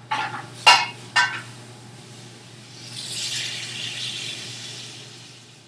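Three quick clatters of a utensil against a frying pan, then a sizzling hiss that swells and fades over about two seconds as food is tossed in the hot pan.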